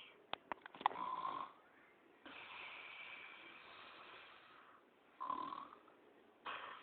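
A man snoring heavily, most likely acted: a short snorting inhale, then a long blown, hissing exhale of about two seconds, then another snort. The blowing exhale marks the 'loud snore' type, snoring with a puff of breath.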